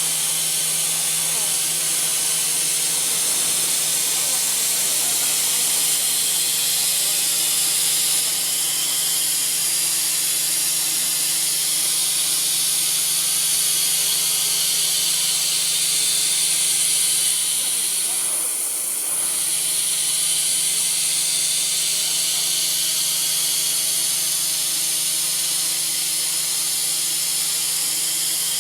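A profile machining center running through a chamfering cut: a steady high hiss over a low motor hum, with a brief dip about two-thirds of the way through.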